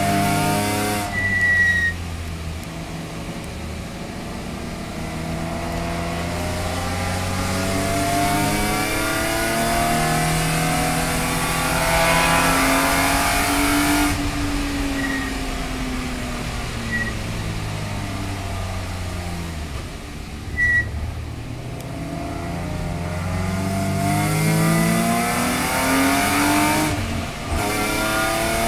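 Race car engine heard from inside the cabin, climbing in pitch through the gears with a sudden drop at each upshift, falling away under braking midway, then pulling up again. It sits over a steady hiss, with a few brief high chirps.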